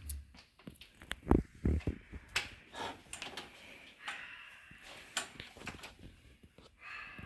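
Irregular knocks, clinks and clicks of hand tools and metal engine parts being handled, the loudest a pair of low knocks about a second and a half in.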